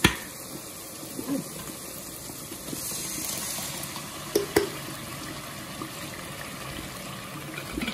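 Tomato sauce poured from a can into a pot of browned ground beef. There is a sharp knock at the very start and two quick knocks about halfway through.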